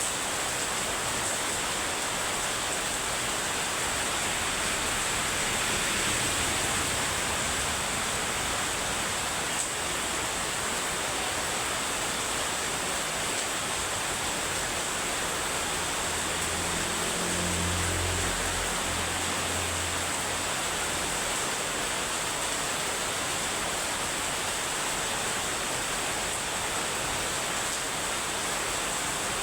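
Heavy rain falling steadily, a dense even hiss. A faint low hum comes in for a few seconds past the middle.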